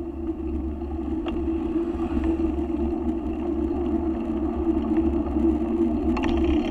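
Steady wind and road rumble on the microphone of an action camera riding on a moving bicycle, mixed with passing car traffic. Faint clicks come about a second in and near the end.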